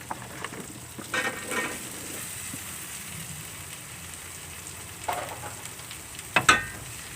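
Food sizzling in hot oil in a pan, stirred with a utensil that scrapes and clanks against the metal pan a few times, loudest near the end.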